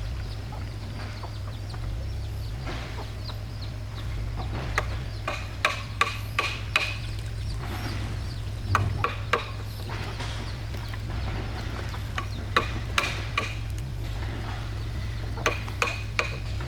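Chickens clucking in short, scattered calls, in a few clusters, over a steady low hum.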